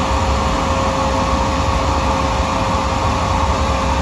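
A loud machine motor running steadily, a constant rushing noise with a steady whine through it, cut off abruptly at the very end.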